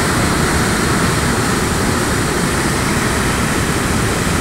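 Steady rushing of a muddy torrent of water and debris pouring out of culvert pipes under a road and cascading down a loose slope, a rain-driven landslide flow.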